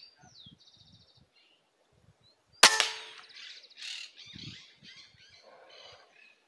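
A 5.5 mm M16 air rifle fires a single sharp shot about two and a half seconds in. Birds chirp before and after it.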